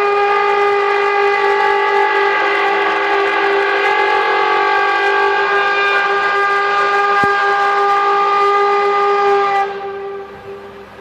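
Bulldozer blade scraping across finished concrete, giving a loud, steady, horn-like tone with several overtones. This is the noise mistaken for mysterious 'trumpet sounds from the sky'. It dies away near the end.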